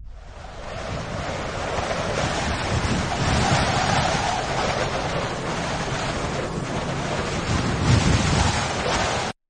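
Steady rushing noise with slow surges, fading in at the start and cutting off suddenly near the end.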